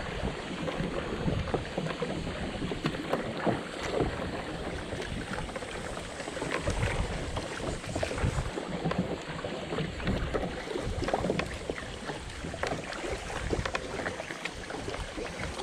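Water splashing and lapping against a kayak, with many small irregular clicks and splashes, and wind rumbling on the microphone.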